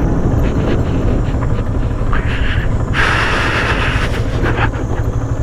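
Motorcycle riding along, its engine and the wind making a steady low rumble on the rider's microphone, with a short burst of hiss about three seconds in.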